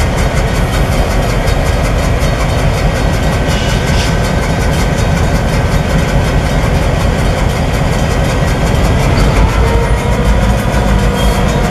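Two CN EMD GP38-2 diesel-electric locomotives, with 16-cylinder two-stroke engines, running as they creep forward, giving a deep, steady throb with a fast, even pulse. A faint whine comes in about ten seconds in.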